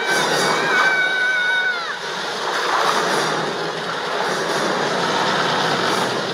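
Loud rushing, sloshing floodwater pouring through a ship's corridor. For the first two seconds a high held cry rides over it, its pitch dropping at the end.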